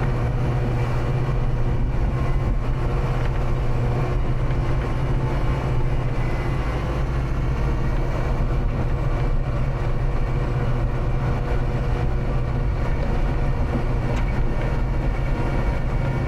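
Kubota diesel tractor engine running at a steady speed as the tractor drives through deep snow.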